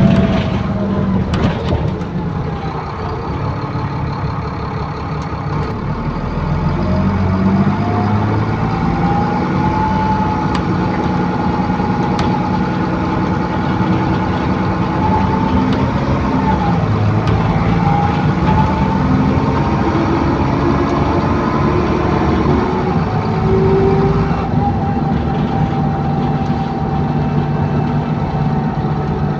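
Onboard sound of an ADL Enviro400 Trident double-decker bus with a Voith automatic gearbox under way: steady engine and driveline noise with a whining, vacuum-cleaner-like tone, the 'hoover', that climbs in pitch about a quarter of the way in and then wavers up and down. Some odd whooshy sounds mix in, and a few clicks come near the start.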